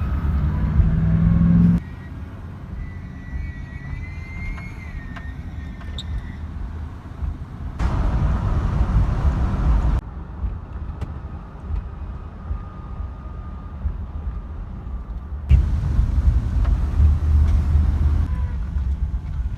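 A vehicle's engine running with a steady low rumble, with a faint wavering high whine in it for a few seconds early on. The sound changes abruptly several times, as between separate clips.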